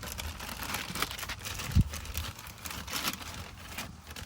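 Handling noise of car parts being picked up and moved: scattered light clicks and rustling, with one dull thump a little under two seconds in.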